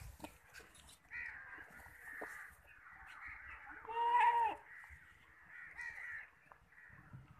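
Crows cawing repeatedly, with one loud caw about four seconds in.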